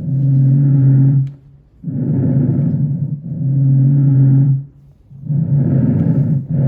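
Breathing heard through a stethoscope on the back of the chest: slow, deep in-and-out breaths, each phase lasting about a second and a half, with pauses between breaths. Each phase carries a low, steady, droning tone.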